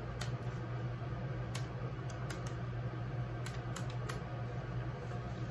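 A scattered handful of light clicks and taps from handling an instant camera, over a steady low hum.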